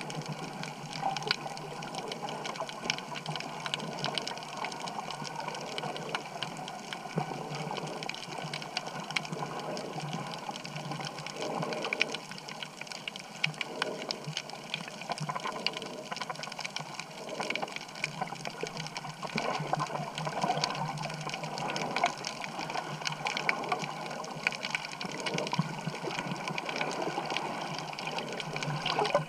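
Water rushing and bubbling around an underwater camera as the snorkeler swims, with a constant crackle of small sharp clicks.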